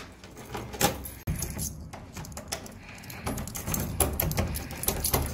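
A bunch of keys jangling as a key is turned in the lock of a wooden door, with a series of sharp clicks from the lock.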